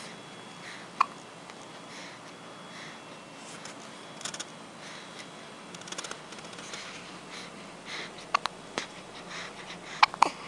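A person hiccuping: one sharp hiccup about a second in, then four or so more close together near the end.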